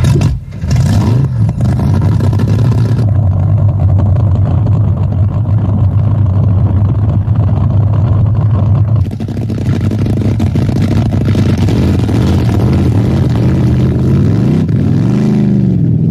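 Top Fuel hydro drag boat's supercharged engine idling steadily and loud, then revved up and back down once about fifteen seconds in.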